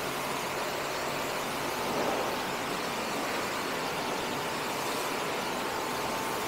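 Pressure washer spraying water onto a car's door panel, a steady hiss with a faint steady whine, rinsing off degreaser.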